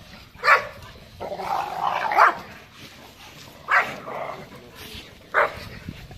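Pit bull barking: a bark about half a second in, a longer run of barking around one to two seconds, then single barks near four and five and a half seconds.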